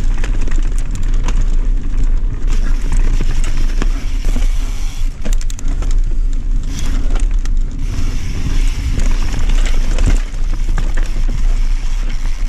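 Enduro mountain bike ridden fast down a dirt forest trail: tyres running over dirt and roots and the bike rattling with scattered clicks, over a steady rush of wind on the camera microphone.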